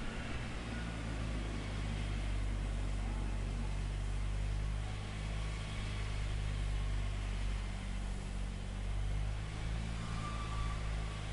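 Engine of heavy road-construction equipment running steadily at a constant speed, with a low, even hum.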